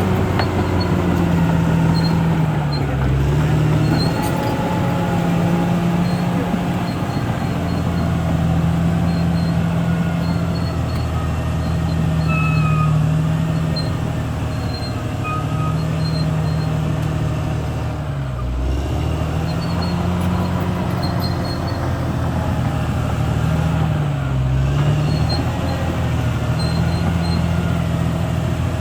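Caterpillar D6R XL bulldozer's diesel engine running steadily, its pitch dipping briefly three times, with faint high squeaks over it.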